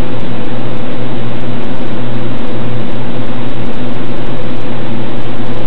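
Old hard drive running with a loud, steady hum and whir, with scattered short clicks; an odd noise from the drive, of unknown cause.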